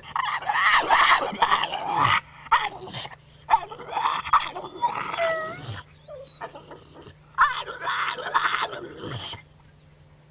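Pit bull-type dog making drawn-out vocal noises in four bouts with short pauses between, the pitch wavering up and down.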